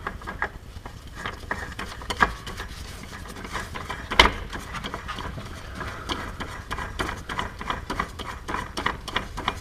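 A spin-on oil filter being screwed by hand onto a remote oil filter mount: light scraping and clicking as it turns. There is a sharper knock about two seconds in and a louder one about four seconds in.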